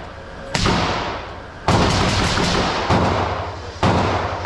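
Firearm shots: a single shot about half a second in, a quick string of shots a little after a third of the way through, then two more single shots about a second apart, each leaving a decaying echo.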